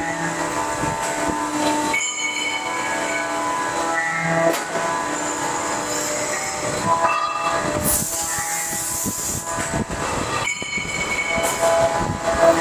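CNC machining centres running in a workshop hall: several steady machine whines and high ringing tones that shift every couple of seconds over a background of machine noise.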